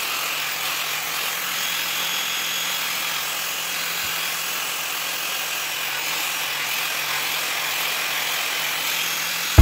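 Handheld angle grinder running steadily with a pink abrasive wheel pressed against a steel sickle blade to polish it. The sound is an even hiss over a low hum.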